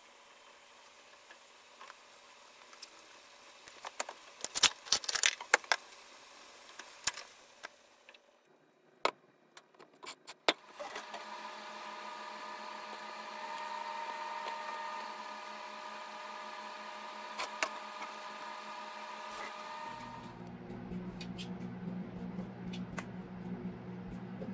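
Chopsticks clicking and tapping against a frying pan while green onions are turned in blanching water, loudest between about four and seven seconds in. About halfway through comes a steady electrical hum with a whine, which changes to a lower hum near the end.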